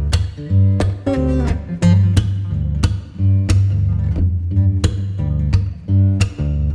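Background music: plucked guitar notes in a quick run over a steady deep bass.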